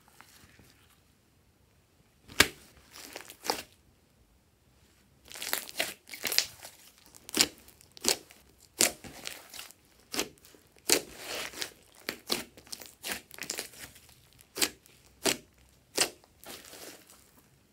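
Fingers poking and squeezing a thick glossy slime studded with small beads: irregular sharp pops and clicks as air pockets in the slime burst, with wet crackling and squishing between them. The popping starts about two seconds in and comes roughly once a second from then on.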